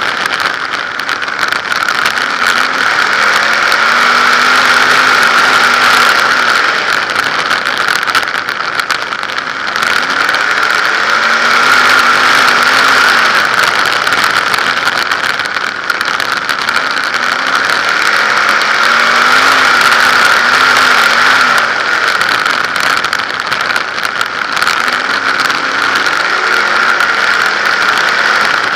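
A 360 sprint car's V8 engine at racing speed, heard on board. Its pitch rises and falls about every five seconds as the car accelerates down the straights and lifts for the turns of a short dirt oval.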